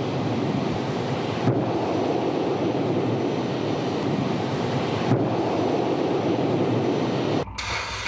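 Loud, steady roar of a missile launched from a warship, heavily mixed with wind on the microphone. Two brief cracks come about 1.5 and 5 seconds in, and the roar cuts off abruptly near the end.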